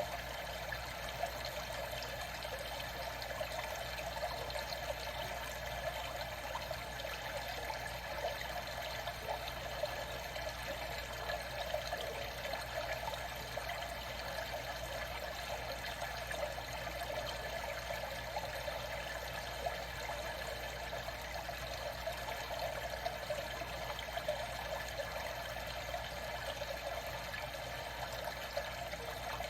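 Water trickling and lapping steadily, with small irregular splashes.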